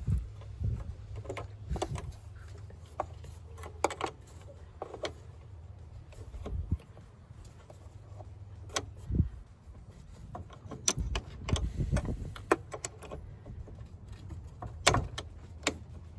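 Scattered metallic clinks and jangles of hand tools and small metal parts being handled, a dozen or more separate short clicks, over a low steady hum.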